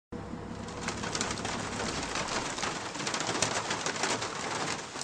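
Heavy rain falling and splashing on pavement: a steady dense patter.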